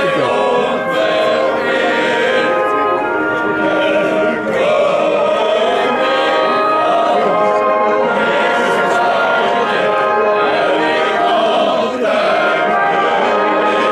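A national anthem playing, with a group of voices singing along.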